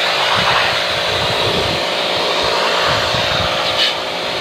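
Pressure washer running steadily, its water jet spraying onto the fins of a window-type air conditioner's evaporator coil to wash it clean, with a brief click near the end.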